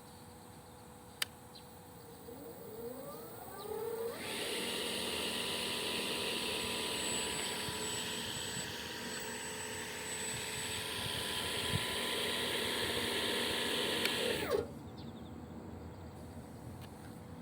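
Electric motor of a small battery-powered remote-control lawn mower spinning up with a rising whine over about two seconds, running loudly and steadily for about ten seconds, then shutting off abruptly and winding down. A single click sounds about a second in.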